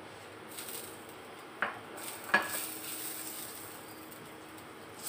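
Butter melting and starting to sizzle in a hot wok as a wooden spatula pushes it around, with two sharp knocks of the spatula against the pan about one and a half and two and a half seconds in.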